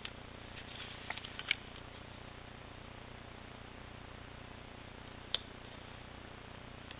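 Faint handling of paper and cardstock as taped paper panels are placed and pressed down: a few soft rustles and ticks in the first second and a half, and one sharp tick about five seconds in, over a low steady hiss.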